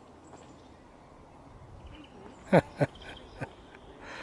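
Two short, loud calls falling in pitch, one right after the other about two and a half seconds in, then a fainter third call, from a waterbird on the river. Small birds chirp faintly behind.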